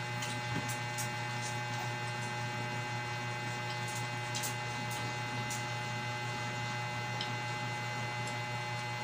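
Steady electrical hum with several fixed tones, unchanging throughout, with a few faint clicks scattered over it.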